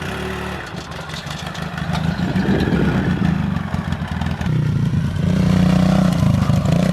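Engine of a small off-road vehicle being ridden, running steadily and growing louder about two seconds in, then holding strong.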